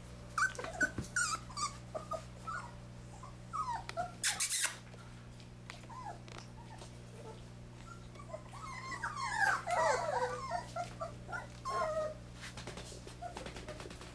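A litter of puppies about four weeks old whining and whimpering in short high-pitched cries, with a cluster of many overlapping whimpers about nine to ten seconds in. A brief scuffling noise about four seconds in, over a steady low hum.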